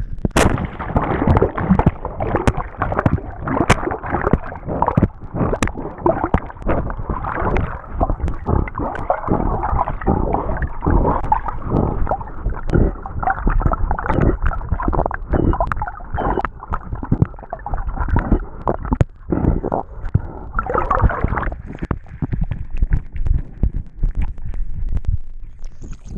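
Dog swimming in a pond, heard from a camera strapped to its chest: a sharp splash as it plunges in, then constant sloshing and gurgling water as it paddles. The water noise drops away near the end as the dog comes out onto the shore.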